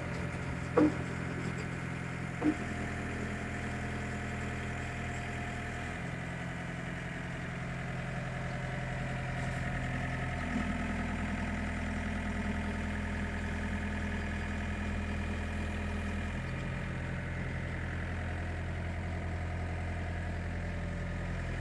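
A vehicle engine runs steadily, its pitch stepping to a new steady note a few times. Two sharp knocks come in the first few seconds.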